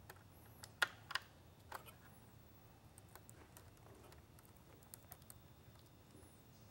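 Faint clicks and rustling of wires and a plastic quick-connect wiring harness being handled while it is freed from a lighthead module, with a few sharper clicks in the first two seconds.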